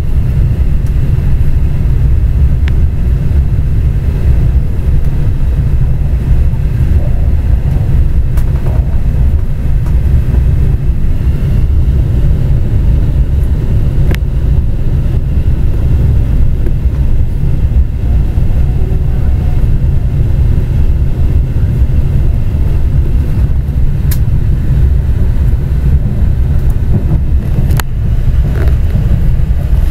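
Steady low rumble inside the cabin of a moving Shinkansen bullet train, with a few faint clicks.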